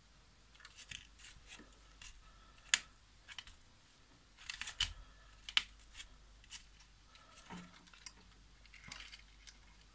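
Scattered small clicks, taps and light scraping from handling a smart plug's circuit board, a soldering iron and a spool of desoldering wick. The sharpest click comes a little under three seconds in, with another cluster about halfway.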